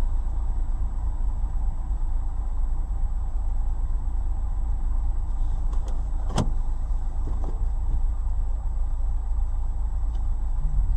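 Steady low rumble of a car idling, heard from inside the cabin, with one sharp click about six seconds in.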